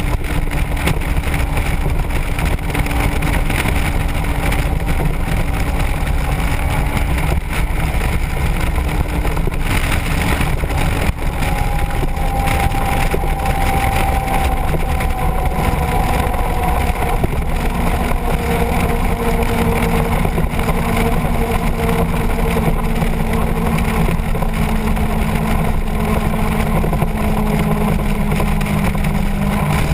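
Motorcycle engine running at road speed under heavy wind rush on the microphone. The engine note steps lower around the middle and settles at a lower pitch.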